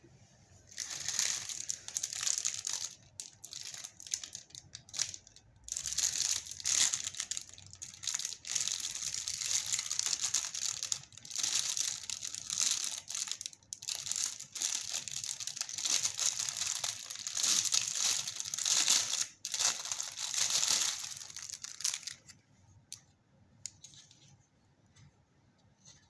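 Clear plastic packaging bag crinkling and being torn open by hand, in dense irregular bursts of crackle. The crinkling stops a few seconds before the end, leaving a few faint ticks from handling the plastic fruit slicer.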